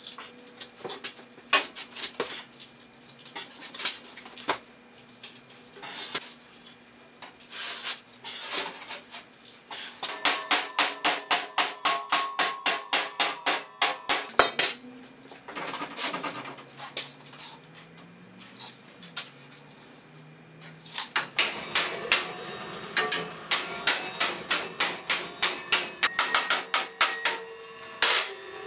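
Hammer blows on sheet steel clamped along a table edge, folding it over, with the metal ringing. Scattered single blows at first, then quick runs of about three to four blows a second, once about ten seconds in and again from about twenty-two seconds in.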